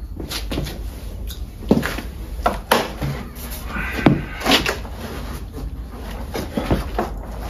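Irregular knocks and clanks of sheet-metal gutter pieces being handled and fitted, with a few sharper hits about 1.7, 2.7 and 4 seconds in and a short metallic ring just after the last.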